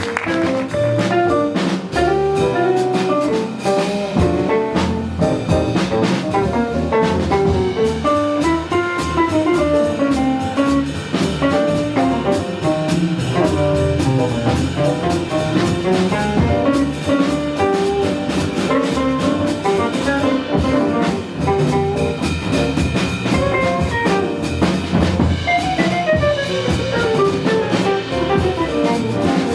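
Jazz combo playing live: a drum kit keeps time under bass, chords and a moving lead melody.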